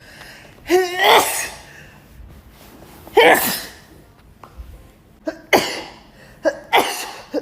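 A woman sneezing repeatedly in a fit, about four or five sneezes. The first opens with a rising 'ah' intake near one second in, and the sneezes come closer together towards the end.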